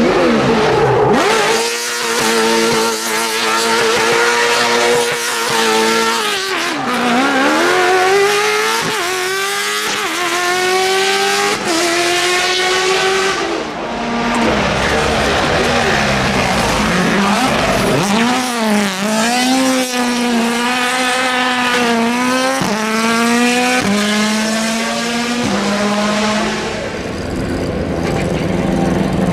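Racing car engine at high revs, accelerating hard: its pitch climbs, drops sharply at each gear change, and climbs again, over and over, with quick blips of the throttle in between.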